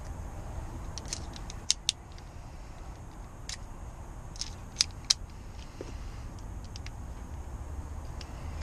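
Small metal clicks and clinks from hand tools and lock hardware being handled during a lock rekey, with two pairs of sharp, loud clicks about three seconds apart, over a steady low hum.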